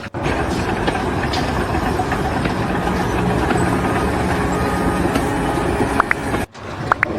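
Steady rumble of a heavy engine running, which stops abruptly about six and a half seconds in.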